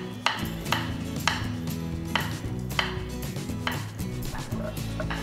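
Chef's knife slicing garlic cloves on a wooden cutting board: regular crisp taps of the blade hitting the board, about one every two-thirds of a second, over soft background music.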